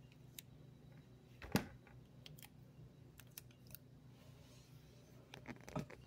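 Oranges being handled in a cardboard box: one sharp knock about a second and a half in, then scattered light taps and clicks, over a low steady hum.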